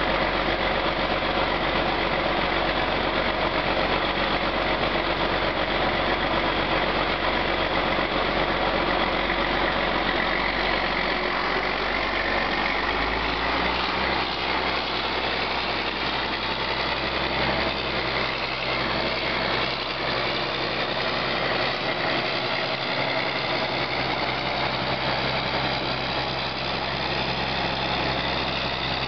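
John Deere 4850 tractor's straight-piped six-cylinder diesel engine running steadily; about halfway through its note shifts as it puffs smoke and is throttled up to pull away, then it runs on a little quieter.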